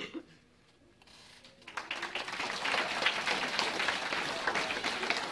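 Audience applauding: many hands clapping, starting about a second and a half in and building to a steady, dense clapping.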